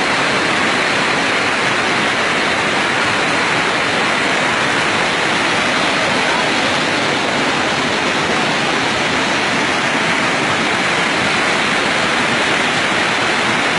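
Muddy flash-flood water rushing past in a steady, loud torrent.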